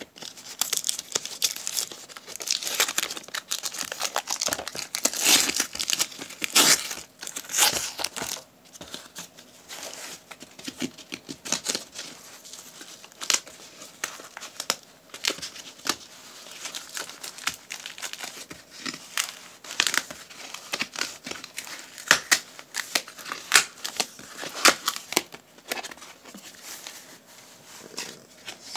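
Hands tearing open a cardboard postal mailing box and crinkling the wrapping inside. Dense tearing and rustling over the first eight or nine seconds gives way to sparser crackles and sharp snaps.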